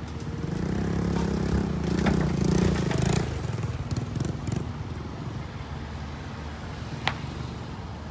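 Excavator's diesel engine working up under load and easing off again, with stones scraping and clattering in the first half and one sharp knock about seven seconds in.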